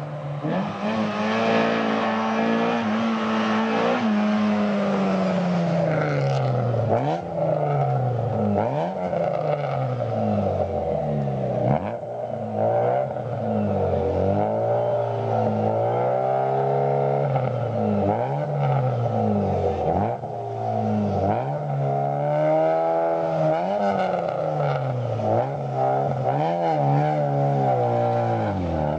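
Rally car engine revving hard, its pitch climbing and dropping again and again as it works through the gears.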